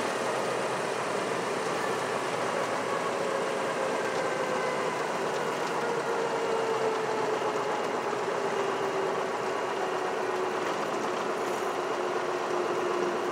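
Light single-engine piston airplane's engine and propeller at low power, heard inside the cockpit as the plane rolls down the runway after touchdown. One tone in the steady running noise slowly falls in pitch.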